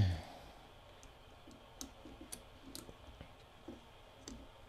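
Faint, irregular small clicks and ticks of fingers handling the wire leads and terminals of a VCR's loading motor, about one every half second to a second.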